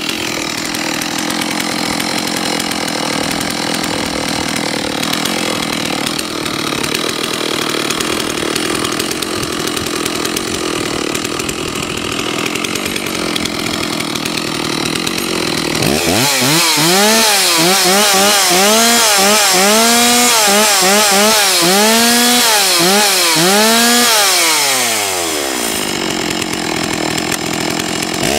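Stihl 064 AV two-stroke chainsaw idling steadily, then revved in a quick series of throttle blips for about eight seconds, the engine pitch rising and falling with each one, before dropping back to idle.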